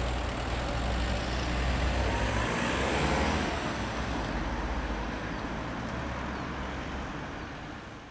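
Road traffic: cars driving past with engine and tyre noise, one passing close about three seconds in. The sound fades away near the end.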